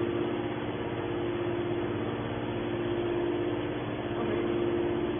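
Horizontal metal baler running: a steady machine hum with a few held tones.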